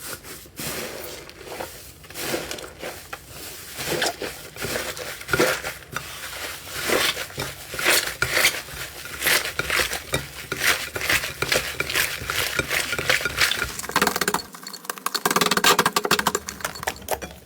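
Slime being squeezed and pressed by hand, making irregular crackling and popping clicks that become a dense, rapid crackle near the end.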